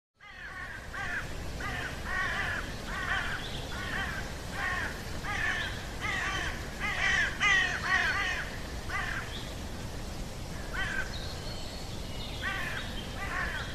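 Crows cawing: a steady run of harsh calls, nearly two a second, over a low background rumble. The calls thin out after about nine seconds, with a few more near the end.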